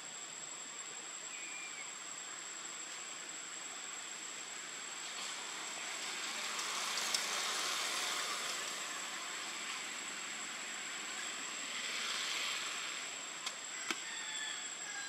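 Outdoor ambience: a steady hiss that swells twice, with a thin, high, steady tone running under it and two sharp clicks near the end.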